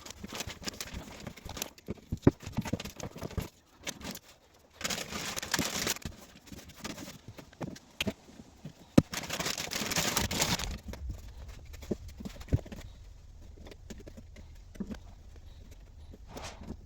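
Hands working carpet padding: scattered knocks and taps, with two longer stretches of rustling material about five and nine seconds in.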